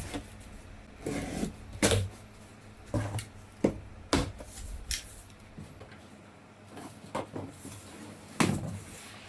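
Cardboard box being opened and unpacked by hand: irregular knocks, scrapes and rustles of cardboard and packing, a few seconds apart.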